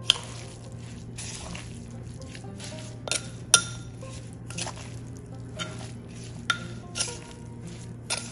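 A spoon tossing shredded green mango and dried fish salad in a clay mortar: soft wet squishing, with several sharp clinks where the spoon strikes the mortar's side.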